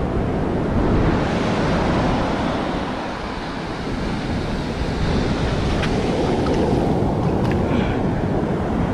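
Small waves washing up the sand and around the feet, with wind buffeting the microphone; a few faint light splashes or clicks in the last few seconds.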